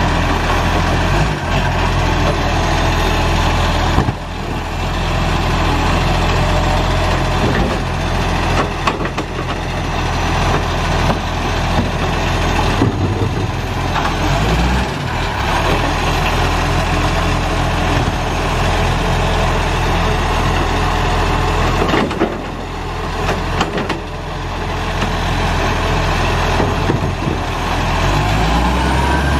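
Side-loader garbage truck's diesel engine running steadily while the hydraulic arm lifts and empties green-waste wheelie bins, with sharp knocks and clatter of the bins and arm. Near the end the engine pitch rises as the truck moves off.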